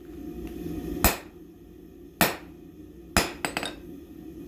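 Hand hammer striking a red-hot steel bar on an anvil: three heavy blows about a second apart, with a couple of lighter taps just after the third, over a steady low hum. The smith is setting a step into the tong stock over the anvil's edge.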